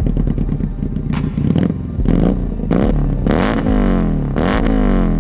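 Keeway SCR 250V motorcycle engine with a custom shortened exhaust, running at idle, then revved in three throttle blips about two, three and a half and four and a half seconds in, each rising in pitch and falling back.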